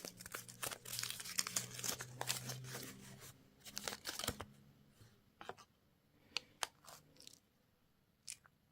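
A candy wrapper being torn open and crinkled in dense crackling bursts for about four seconds, then a few separate light clicks and taps as the handling eases off.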